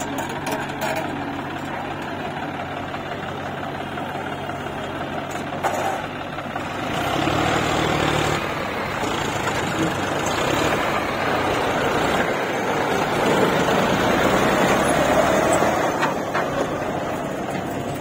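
Diesel engines of a JCB 3DX backhoe loader and a farm tractor running steadily, growing louder about seven seconds in, with a few short knocks.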